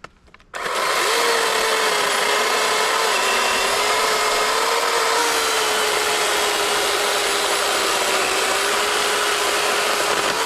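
Battery-powered Ridgid electric chainsaw cutting through a tree trunk, starting suddenly about half a second in and running steadily under load with a high motor whine over the noise of the chain in the wood.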